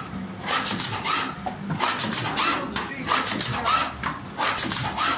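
ZXTJ 600A automatic box corner-pasting machine running its cycle: a rhythmic clatter of clicks with a short squeak each stroke, about three strokes every two seconds.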